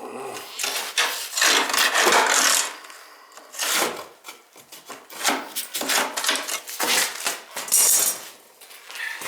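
Brush scraping back and forth inside a boiler's wet, mucky flue passages, in a run of uneven rasping strokes.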